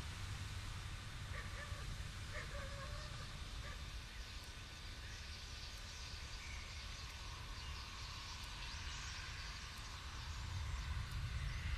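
A flock of common starlings calling, a dense high chattering, over a steady low rumble of wind on the microphone. A few short, lower bird calls come about one to three seconds in, and the flock's noise grows louder near the end.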